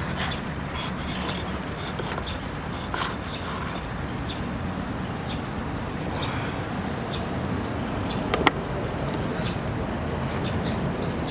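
Steady outdoor street background noise, with a few sharp knocks. The loudest is a quick double knock about eight and a half seconds in.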